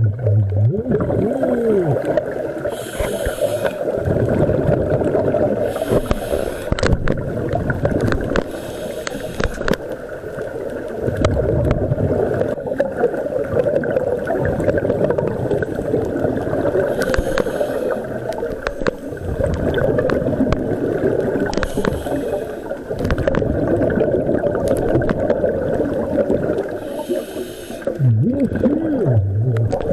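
Scuba diver breathing through a regulator underwater: a short hiss of inhalation every few seconds, alternating with the bubbling rumble of exhaled air.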